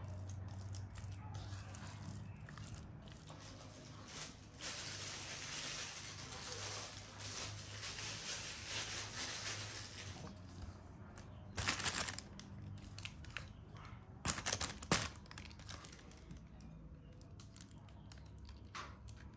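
Thin plastic bag crinkling and rustling as it is handled and filled with soft dough: a long stretch of rustling, then two short, louder crinkles past the middle.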